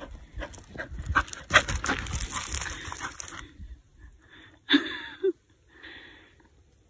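An Airedale terrier's paws crunching and crackling on dry fallen leaves as it runs up a dirt trail, then a short vocal sound about five seconds in once it has stopped close by.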